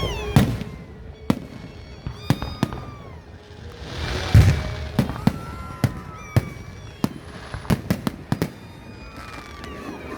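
Fireworks going off: a run of sharp bangs and pops, with a heavy boom about four seconds in.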